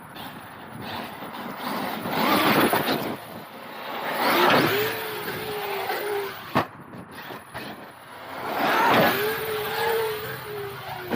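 Traxxas X-Maxx RC monster truck driven in throttle bursts: three swelling rushes of noise, the last two each followed by the brushless electric motor's whine slowly falling in pitch as the truck coasts. One sharp click a little past halfway.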